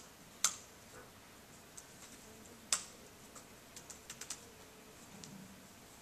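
Laptop keyboard keystrokes: a couple of separate, sharp key presses, then a quick run of lighter taps about four seconds in as a short command is typed.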